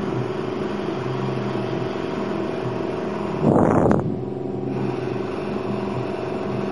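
Small airbrush compressor's motor running steadily, with a short louder burst of noise about three and a half seconds in.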